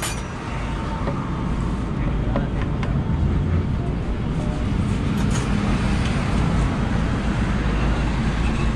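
Steady low rumble of road traffic, with a few faint metallic clicks of a tool on the motorcycle's clutch cover as it is worked loose.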